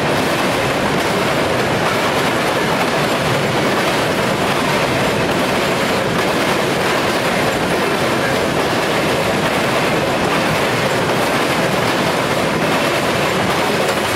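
Freight train cars rolling past at speed: a steady, loud rumble and clatter of steel wheels on the rails.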